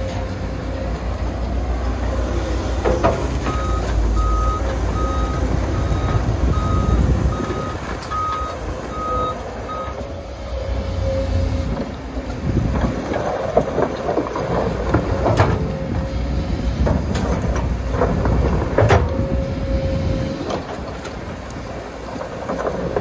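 Komatsu PC200 crawler excavator at work in mud: its diesel engine running steadily under load, with a travel alarm beeping regularly, about one and a half beeps a second, for roughly six seconds from a few seconds in. Several sharp metallic clanks from the bucket and boom stand out, two of them in the second half.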